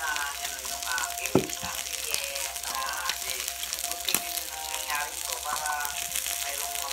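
Meat sizzling on a yakiniku grill, a steady hiss, under background music with singing; two sharp clicks, about a second and a half and four seconds in.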